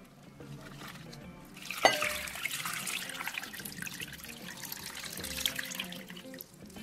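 Water poured from a glass jug into a glass bowl of spinach leaves. It starts with a splash a little under two seconds in and then runs as a steady stream, with soft background music underneath.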